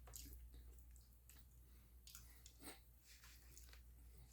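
Faint chewing: wet mouth smacks and clicks at irregular intervals, over a low steady hum.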